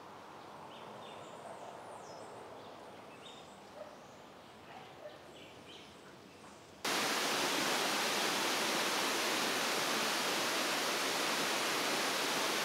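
Quiet rainforest ambience with scattered short chirps. About seven seconds in it gives way abruptly to the loud, steady rush of a waterfall pouring over rocks.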